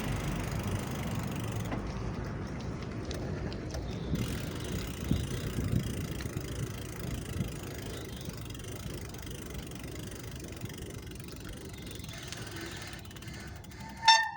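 Bicycle on the move: steady rolling and wind noise with occasional light clicks from the bike. Just before the end, two short high squeals from the squeaky brakes.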